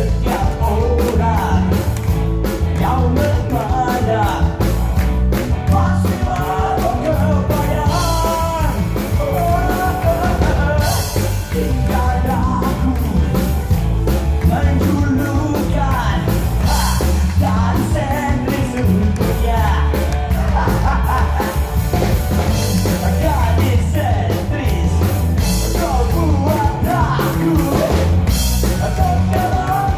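Rock song with a man singing an Indonesian lyric over a full band, with drums and bass keeping a steady beat.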